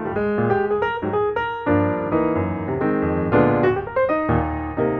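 Background piano music: a quick run of single notes over a bass line, then fuller chords from about two seconds in.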